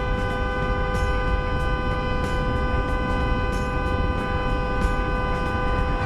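A car horn held down in one long, unbroken two-tone blast, over low road and engine rumble heard from inside the car.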